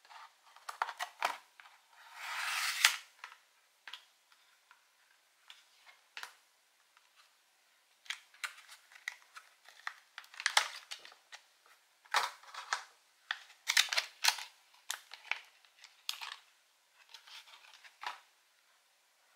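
Clear plastic blister pack being bent, pried and pulled open by hand: an uneven run of sharp plastic crackles and snaps, with a longer crinkling rustle about two to three seconds in.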